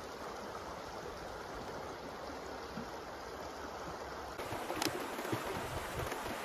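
Shallow river water running over a rocky bed: a steady rush, with a short sharp click about five seconds in.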